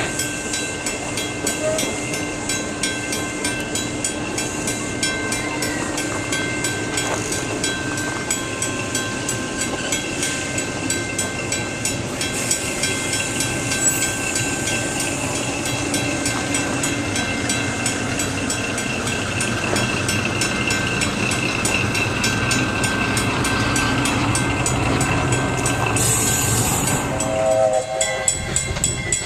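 Flagg Coal Co. No. 75 steam locomotive working past with its excursion train: a rhythmic, steady clatter that grows gradually louder, with a brief hiss and a short whistle note near the end.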